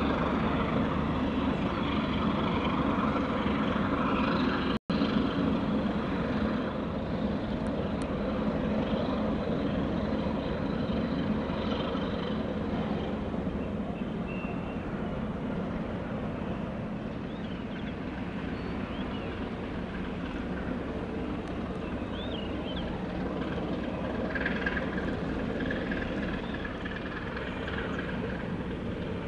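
A steady low engine drone with no clear rhythm. The sound cuts out for an instant about five seconds in.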